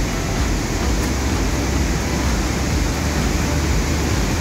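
Pailón del Diablo waterfall: a steady, loud rush of falling water with a deep low rumble.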